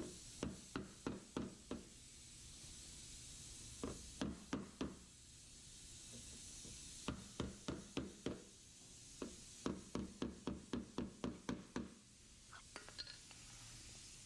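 Hammer strikes on the flange of a new steel door skin, folding its corners over the edge of the door shell. The taps come in four runs of about three a second, with short pauses between runs.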